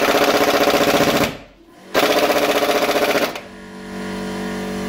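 Pneumatic impact wrench hammering rapidly on the camshaft sprocket bolt of a VAZ engine, in two bursts about a second apart, breaking the tightly done-up bolt loose. After the second burst a steady motor hum takes over, the air compressor running.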